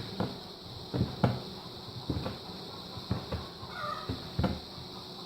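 Stiff dough being kneaded by hand on a tabletop: dull thumps at a rough rhythm, often in pairs about a second apart, as the dough is pressed and slapped down.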